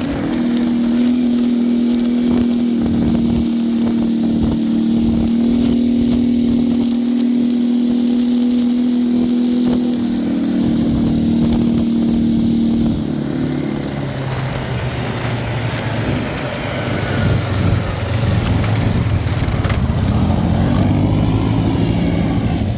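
Can-Am Outlander 850 V-twin ATV engine running hard at a steady speed; about thirteen seconds in the pitch drops as it slows, and it runs lower and less evenly after that.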